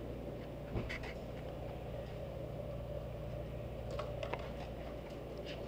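Steady low room hum, with a few light clicks and taps as a tape measure is laid along a plastic fish-measuring bump board by hand; a soft thump comes just under a second in.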